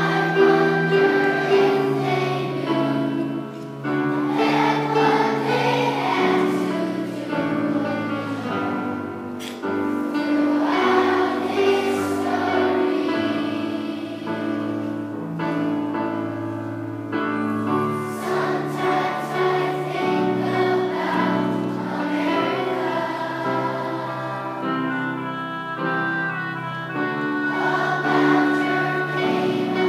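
A choir of elementary-school children singing a song.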